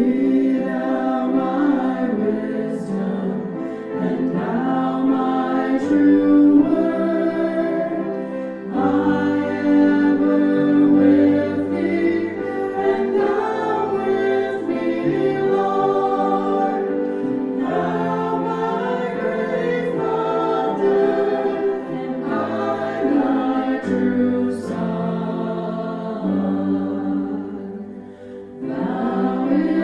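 Choir singing a hymn, many voices together, with a short break between phrases near the end.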